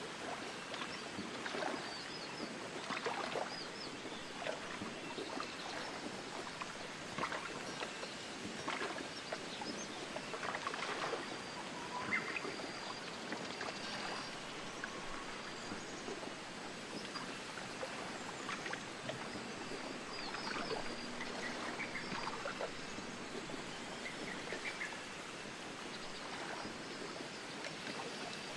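Outdoor nature ambience: a steady rushing noise full of small crackling splashes, with a few short high bird chirps scattered through it.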